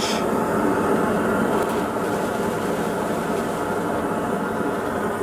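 Propane burner under a crawfish boil pot running full, a steady even rushing noise.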